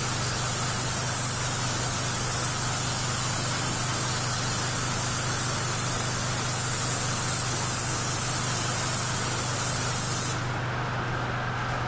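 Hobby airbrush gun hissing steadily as it sprays a light coat of mirror chrome paint, over the steady low hum of a small airbrush compressor. About ten seconds in the spray cuts off suddenly, leaving the compressor hum.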